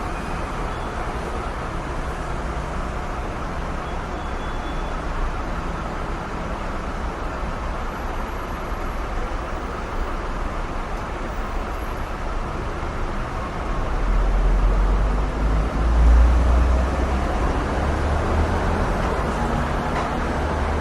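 Road traffic: a steady wash of passing vehicles and tyre noise, with a heavy vehicle's low engine rumble growing loud about two-thirds of the way through and staying up to the end.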